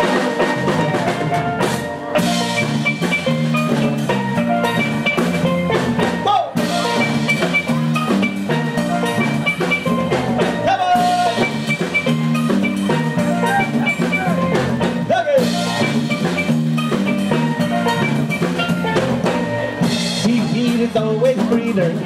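Live steel band playing an instrumental passage. Steelpans carry the melody over a repeating bass line and a drum kit, with a cymbal crash every few seconds.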